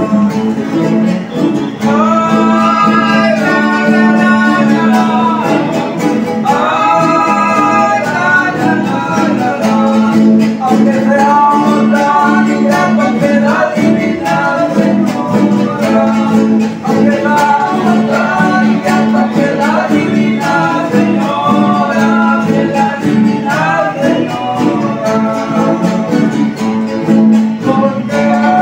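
Group of men singing a Venezuelan canto de tono, a religious wake song, in phrases of long held notes over strummed acoustic guitars.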